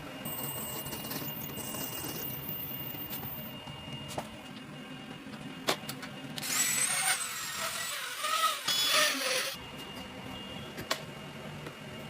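A power tool works metal in a burst of about three seconds in the middle, with a high whine over a harsh noise. Before it there is a sharp click, and a steady low hum runs underneath.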